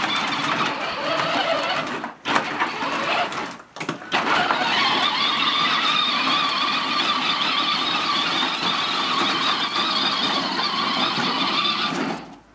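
Battery-powered ride-on toy Hummer's electric motor and gearbox whining as it drives, with its plastic wheels rolling over gravel. It stops briefly twice, about two and four seconds in, then runs steadily until it cuts off near the end.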